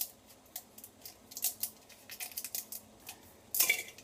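Kitchen scissors cutting dried kombu kelp into a spice grinder cup: a run of sharp, irregular snips, with a louder, longer crunch about three and a half seconds in.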